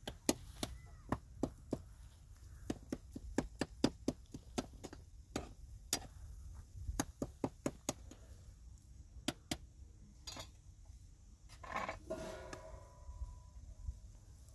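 Hand chopping on a board: sharp, irregular knocks, a few strokes a second, tailing off about ten seconds in.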